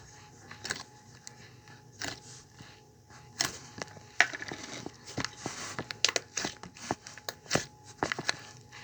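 Irregular clicks, taps and crinkles of hands handling candy and slime-making materials at close range, with a denser stretch of crinkling about four to five seconds in.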